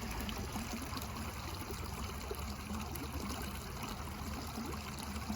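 Running water flowing steadily, over a low rumble.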